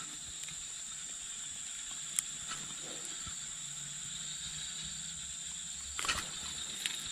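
Steady high-pitched insect drone, holding two even tones, with a sharp click about two seconds in and a short cluster of clicks about six seconds in from metal pliers and a lip grip handling the hooked snakehead.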